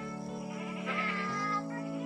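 Background music with long held chords that shift about every second and a half, under a wavering melody line.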